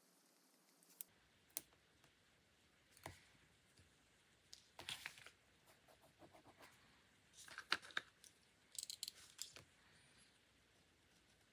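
Quiet paper-crafting sounds at a desk: a few light taps and clicks, then short bursts of paper rustling and crinkling in the second half, as stickers and paper are handled.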